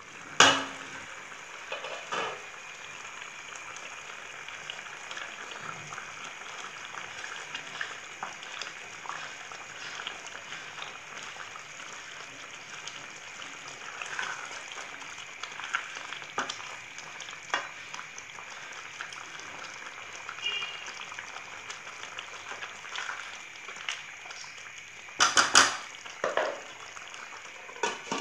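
Chicken curry simmering and sizzling in its masala in a pan on the stove while the meat softens, stirred with a spatula, with a steady crackle throughout. Sharp clanks of the lid and utensil against the pan come at the start and again near the end.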